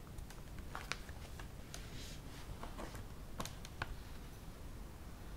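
Long fingernails tapping and scraping on the plastic case of an Acer Aspire 3 laptop as it is handled and its lid opened: faint, irregular light clicks.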